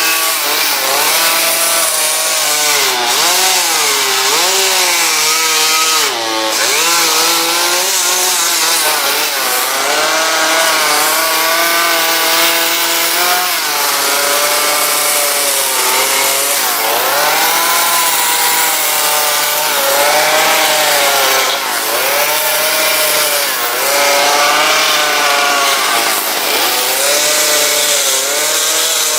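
Chainsaw running continuously while carving into wood, the engine's pitch repeatedly dipping as the chain bites and rising again as it frees.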